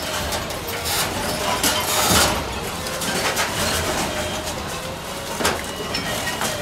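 Truck-mounted hydraulic grapple loader running with a steady wavering drone while its claw crushes and drops cardboard and wood debris into a steel roll-off dumpster, giving scattered crunches and knocks. The loudest crunch comes about two seconds in, another about five seconds in.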